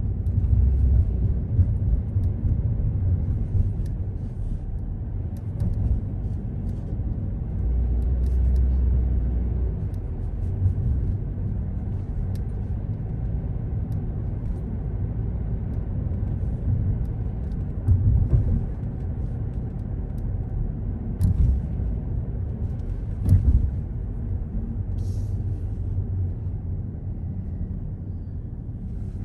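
Car driving on city streets: a steady low rumble of engine and tyres, swelling now and then, with a few short sharp knocks in the second half.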